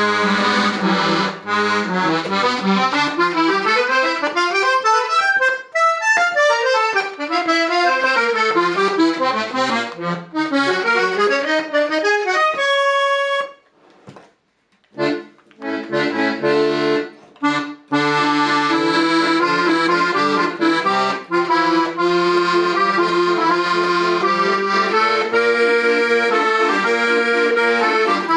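Hohner Ouverture accordion played as a sound test: fast runs of single notes falling and rising, then one held note and a short break about halfway through. After that come short detached chords, then sustained chords over bass notes.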